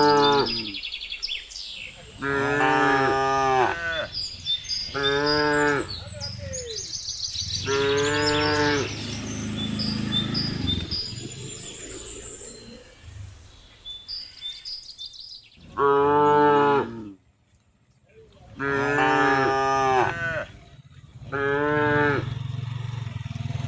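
Cattle mooing again and again: about seven long, loud moos, each about a second long, with gaps between them.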